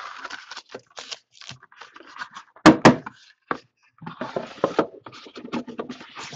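Cardboard trading-card box and foil-wrapped card packs being handled: scraping and rustling, with two sharp knocks in quick succession a little under three seconds in.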